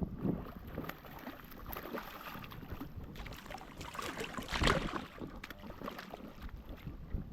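Wind buffeting the microphone, with water sloshing and splashing in shallow creek water; the loudest splash comes about two-thirds of the way through.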